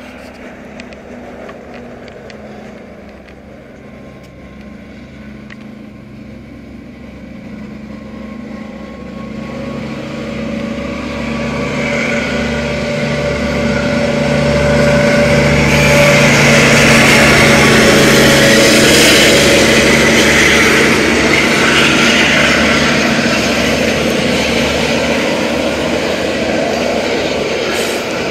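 KiwiRail DL-class diesel-electric locomotive hauling a coal train of hopper wagons past at close range. Its engine's drone grows steadily louder as it approaches and is loudest about two-thirds of the way through as it passes. The rumble and clatter of the wagons' wheels on the rails then carries on.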